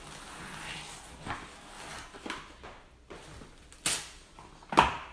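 Plastic cling wrap being pulled from its box and handled, a soft crinkling rustle with small clicks, then two sharp knocks or snaps about a second apart near the end.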